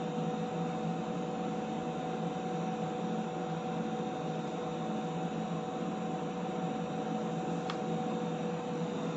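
Steady hum and whirring hiss of running lab equipment, with two steady tones held over the noise; a faint tick near the end.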